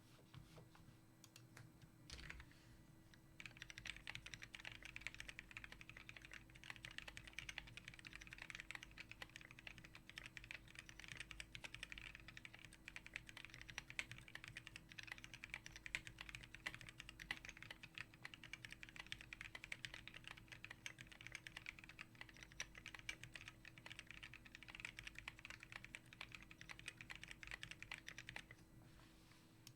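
Custom mechanical keyboard with lubed and filmed Gateron Brown tactile switches on a brass plate, with PBT keycaps, being typed on fast and continuously. The typing starts a few seconds in, after a brief burst of keystrokes, and stops near the end.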